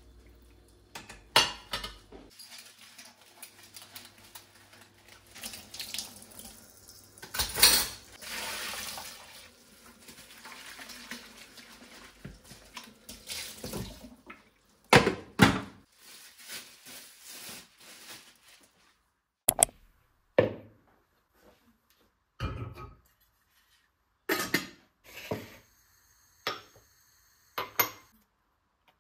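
Washing dishes at a kitchen sink: the tap runs over clinking dishes for about the first half, then the water stops and dishes and pots are set down one at a time with separate clacks.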